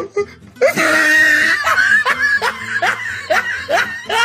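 Loud laughter starting about half a second in, with a run of repeated short laughs.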